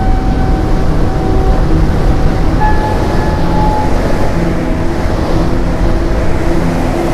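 Background music of slow, held notes over loud, gusty rumbling of wind on the microphone.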